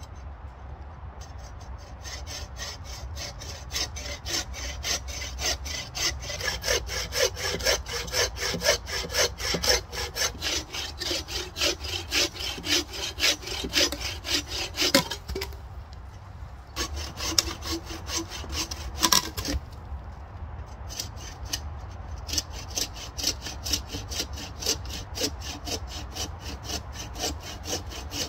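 Bow saw cutting through a fallen log: rhythmic back-and-forth strokes of the blade through the wood, stopping briefly twice about halfway through.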